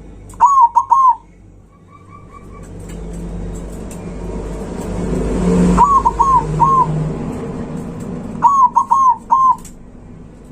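Zebra dove (perkutut) cooing in three short phrases of three to four clipped, hooked notes. Between phrases a low rushing noise swells over a few seconds and cuts off suddenly just before the second phrase.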